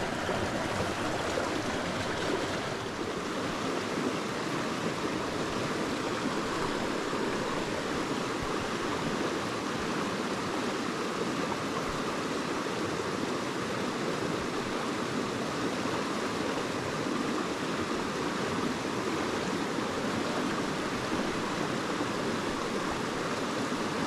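Small rocky creek running over a riffle, a steady, even rush of water.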